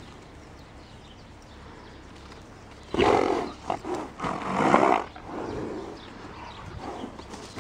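A Friesian horse getting up from rolling in the sand: quiet at first, then loud rough bursts of sound about three seconds in and again around four to five seconds as she heaves herself up.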